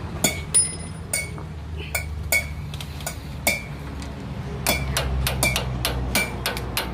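Sharp metal-on-metal taps with a short ring, spaced irregularly and coming quicker about five seconds in: the front wheel bearing's threaded lock nut on an Isuzu D-Max Hi-Lander hub being tightened until snug, not over-tight.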